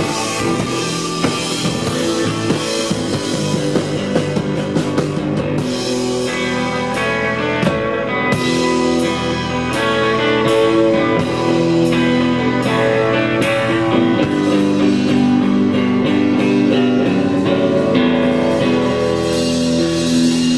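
Live rock band playing an instrumental passage: guitar chords ringing over bass and a steady drum beat with cymbal hits.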